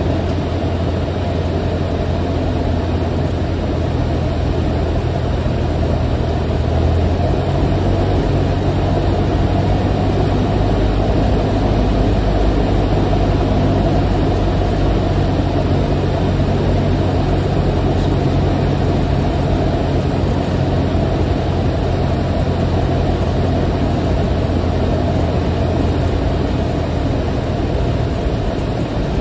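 Light aircraft's engine and propeller droning steadily inside the cabin, with a slight change in engine note a few seconds in, on approach to land.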